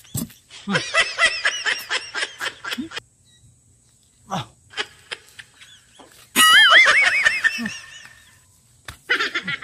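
Two bursts of high, warbling, laugh-like cries, the first about a second in and the second starting suddenly a little after six seconds and louder, with a few short clicks in the quiet stretch between.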